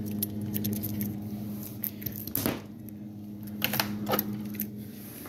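Frozen freeze pops in plastic sleeves and other freezer items being handled: rustling and light knocks, a few times over a steady low hum.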